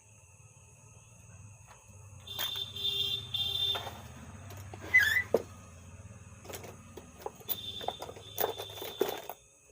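Bench work on an amplifier board: a low electrical hum, a steady high-pitched tone heard twice for about a second and a half each, and scattered clicks and taps of tools.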